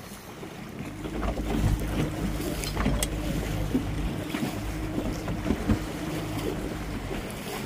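Motorboat engine running steadily under wind noise on the microphone, with water splashing against the hull; the engine note fades near the end.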